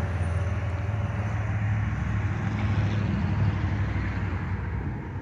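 Steady low rumble of motor vehicles, with no sharp events.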